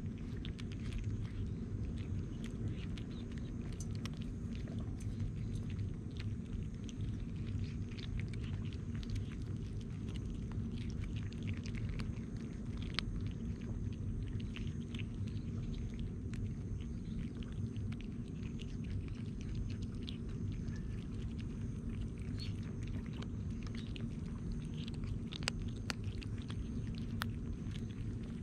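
Several stray kittens crunching dry kibble: many quick, irregular crunches, over a steady low rumble.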